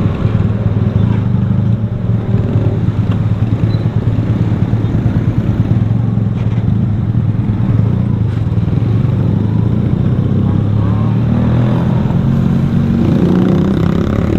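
Motorcycle engine running steadily while riding in traffic, with road noise; its pitch shifts a little near the end.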